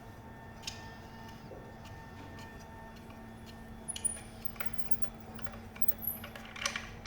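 Scattered light clicks and taps of hand tools and parts being handled during disassembly work, a few at a time, over a steady low hum.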